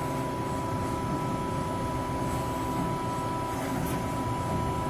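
Steady machinery hum in a metal-fabrication shop, with a constant high-pitched whine over it. No punching strokes or impacts are heard.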